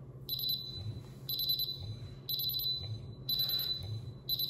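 Senko SGT-P hydrogen sulphide gas detector in alarm: a high beep about once a second, each beep lasting over half a second, with the vibration motor's low buzz between the beeps. Test gas from the calibration cap has pushed the H2S reading past the alarm set point.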